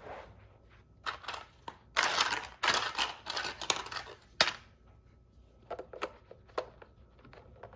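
Plastic toy train track pieces being handled and fitted together: clattering, rustling and sharp clicks. The sound is densest between about two and four and a half seconds in, with scattered single clicks after that.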